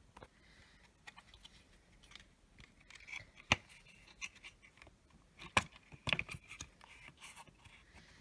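Handling noise from the plastic housing of an opened EST Genesis speaker strobe: scattered clicks and light scraping as the parts are touched and moved, with the sharpest clicks about three and a half seconds in and again around five and a half to six seconds.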